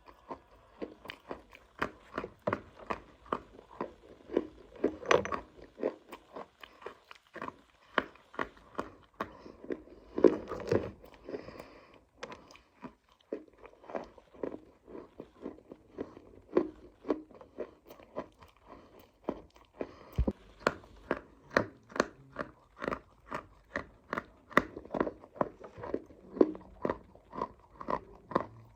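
Close-up crunching of dry chalky clay (mitti) being bitten and chewed: a quick run of sharp, brittle crunches, two or three a second, with a couple of short pauses.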